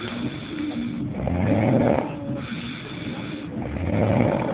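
A person snoring loudly, a deep rasping snore coming about every two and a half seconds, twice here, with quieter breathing between.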